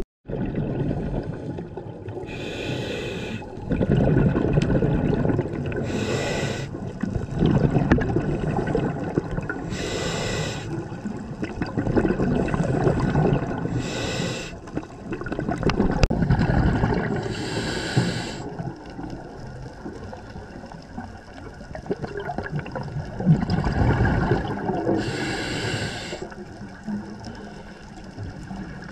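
Scuba diver breathing through a regulator underwater: a rush of exhaled bubbles about every four seconds, six in all, with a longer pause before the last one, over a steady low rumble of water.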